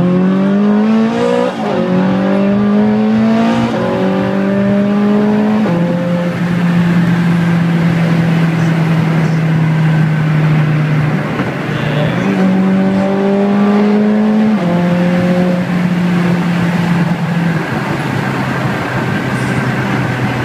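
Ferrari F430 Scuderia's 4.3-litre V8 on straight pipes, heard from inside the cabin, revving up through three quick upshifts, each shift a sudden drop in pitch, then holding steady revs. About twelve seconds in it pulls up again through one more shift and holds before easing off near the end.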